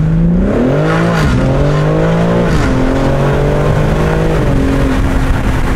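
BMW G80 M3's S58 twin-turbo inline-six through an X-Force cat-back exhaust, accelerating hard. The engine note climbs in pitch and drops sharply with each of three upshifts.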